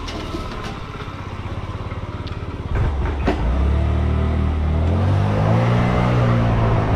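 Small delivery motorcycle's engine idling with a steady throb, then revving up about three seconds in and rising in pitch as it pulls away, with a sharp click or two as it sets off.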